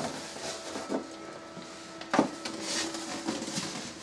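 Light plastic knocks and clicks as an egg incubator's lid is handled and set in place, the sharpest just after two seconds in, over a faint steady hum.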